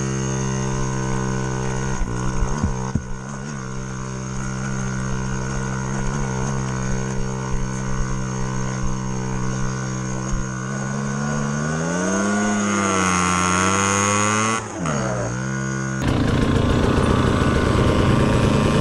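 Dirt bike engine running at a steady, even pitch, then rising and falling in revs about twelve seconds in. Near the end the sound switches abruptly to a louder, rougher engine noise.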